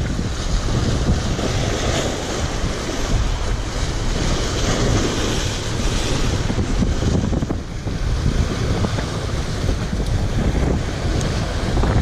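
Sea waves breaking and washing against concrete breakwater blocks, a steady rushing surf, with wind buffeting the microphone.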